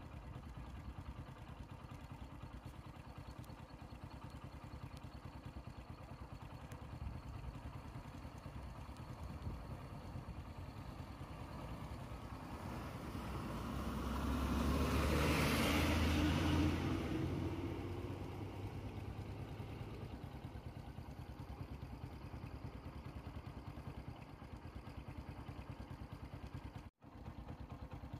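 A steady low engine rumble, with a passenger bus's engine growing louder as it drives slowly past close by, loudest about halfway through, then fading away.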